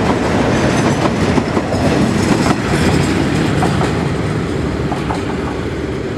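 Empty flatbed freight wagons rolling past on steel rails, their wheels clattering over the rail joints. The sound slowly fades from about halfway through as the tail of the train draws away.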